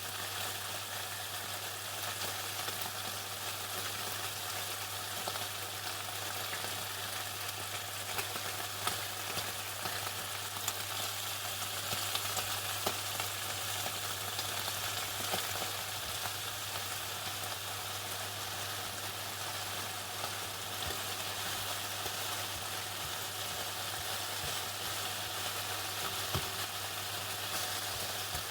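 Chicken deep-frying in hot oil: a steady sizzle with scattered small crackles and pops. A low steady hum runs underneath.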